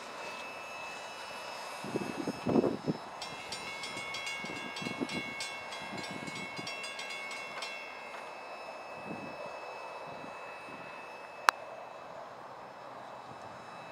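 Florida East Coast Railway freight train of trailers on flatcars rolling slowly and braking to a stop: steady high-pitched metallic squealing from the wheels, strongest from about three to seven and a half seconds in, over low irregular thumps, the loudest about two and a half seconds in. A single sharp click comes near the end.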